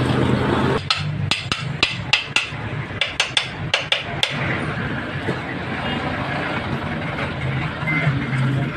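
A quick run of about a dozen sharp metallic taps and knocks, some ringing briefly, on the aluminium crankcase of a motorcycle engine being reassembled. A steady low hum runs underneath.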